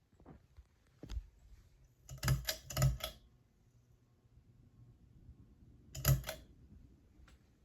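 Sharp clicks in quick groups: one about a second in, a rapid run of five or six a second later, and a pair near six seconds in.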